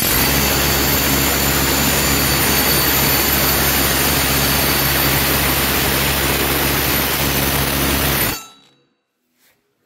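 Bosch GBH 180-LI 18 V cordless rotary hammer running with its bit pressed down, a fast, steady, loud hammering that stops abruptly about eight seconds in. It is a test after a repair for weak impact: with the piston's compression ring replaced, the blows are audibly stronger.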